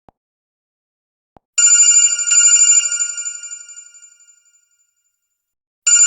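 Android 10 (LineageOS 17.1) ringtone playing from the device: a bright, bell-like electronic ring with a rapid trill that fades out over about three seconds, then starts again near the end. Two faint ticks come before it.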